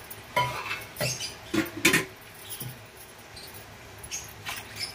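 Cookware clattering: several short knocks and clicks, four in the first two seconds and two fainter ones near the end.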